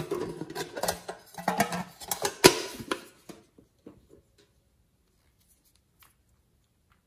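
Hard plastic being handled: a plastic container and small plastic toy pieces rattling and clicking, with one sharp click about two and a half seconds in. After about three seconds only a few faint ticks remain.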